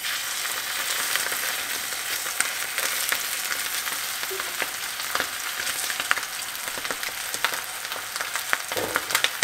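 Skin-on chicken breast searing skin side down in smoking-hot olive oil in a stainless steel frying pan. The sizzle starts suddenly as the meat goes in, then runs as a steady hiss with many scattered crackles and pops.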